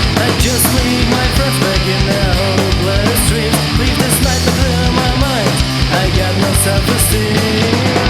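Background rock music with distorted guitars and a steady drum beat, in a punk/metal style, during an instrumental stretch without vocals.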